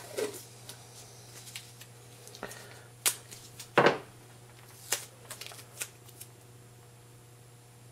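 Painter's tape being pulled off and torn by hand: a few short sharp crackles and clicks, the loudest two about three and four seconds in, with smaller ticks after.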